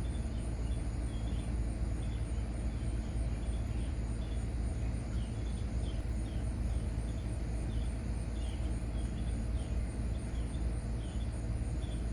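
Outdoor garden ambience: insects trilling in a high, evenly pulsing rhythm over a steady low rumble, with short chirps repeating now and then.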